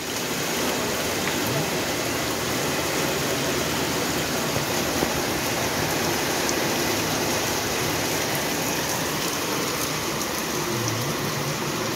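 Heavy rain falling steadily on a paved street, a constant even hiss.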